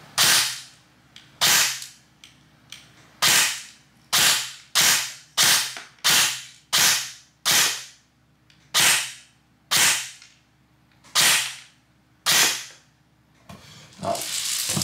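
Electric airsoft rifle (AEG) test-firing single shots on semi-auto: about thirteen sharp snaps at uneven gaps of half a second to a second and a half.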